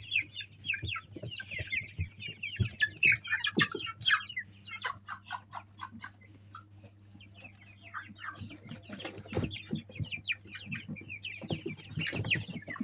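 A flock of chickens calling over one another in many short, high clucks and peeps, thinning out for a few seconds in the middle. A low steady hum runs underneath.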